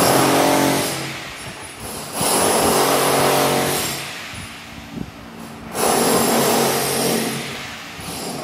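A trowel scraping and spreading cement tile mortar over a concrete floor. It makes three long rasping strokes, each starting sharply and fading away, about three seconds apart.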